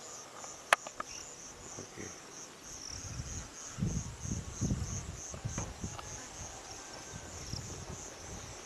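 Insects chirping in a steady high-pitched pulsing trill, about three pulses a second. A sharp click comes about a second in, and low rumbling noise rises near the middle.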